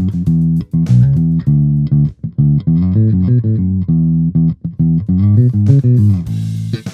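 Electric bass played through an Ampeg Rocket Bass RB-108 30-watt combo amp: a run of plucked notes with slides, ending on a held note.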